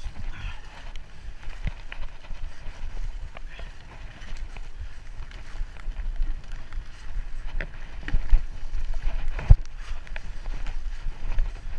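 Mountain bike ridden fast down a rough dirt trail: a low rumble of wind and tyres with constant rattling and knocking of the bike over bumps, and one hard knock about nine and a half seconds in.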